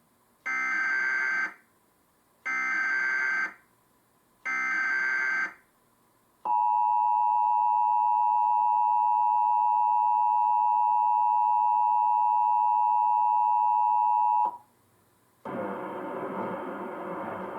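Emergency Alert System test opening: three one-second bursts of warbling SAME header data tones about two seconds apart, then the two-tone attention signal (853 and 960 Hz), a steady harsh dual tone held for about eight seconds that cuts off abruptly. About a second later a rougher, noisy sound begins.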